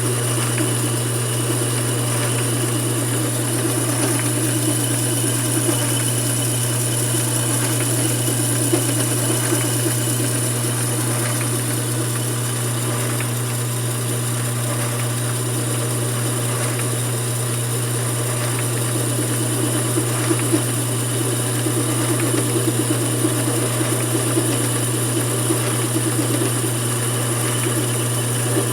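Mini lathe running steadily: a constant motor hum with a high whine above it, and a few light ticks about twenty seconds in.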